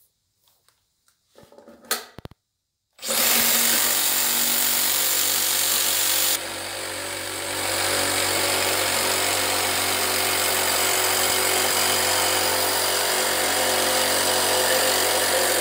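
A few light knocks, then a Makita JR187D 18 V cordless reciprocating saw starts about three seconds in and runs steadily, its blade cutting down through a thick wooden board to sever the part a circular saw's blade could not reach. Its sound drops a few seconds after starting and picks back up a second or so later.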